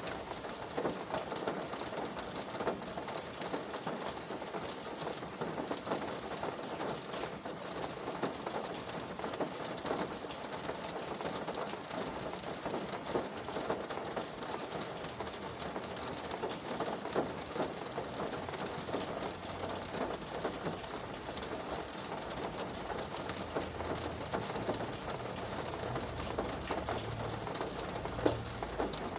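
Rain falling on a car's roof and windows, heard from inside the car: a steady dense patter of individual drops. A low rumble joins in from about two thirds of the way through.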